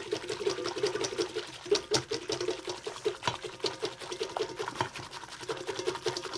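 Wire whisk beating eggs and vanilla fast in a tilted stainless steel mixing bowl, a rapid, rhythmic clatter of wire against ringing metal with a short break or two. The eggs are being whipped until light and frothy.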